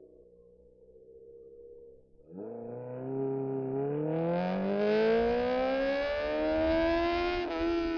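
Honda CBR600RR's inline-four engine accelerating hard in one long pull: the exhaust note rises smoothly in pitch for about five seconds, then dips briefly near the end and settles.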